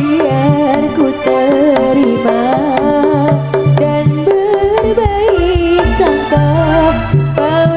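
Javanese jaranan gamelan music played live: kendang hand-drum strokes and metallophone notes under a wavering, bending melody line, with a repeated low note underneath.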